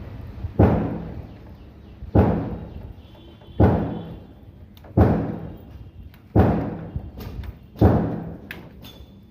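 Six heavy thuds struck at a steady pace, about one every second and a half, each dying away over about a second.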